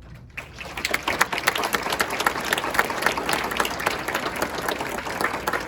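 Audience applauding: many hands clapping together, building up in the first second, then holding steady.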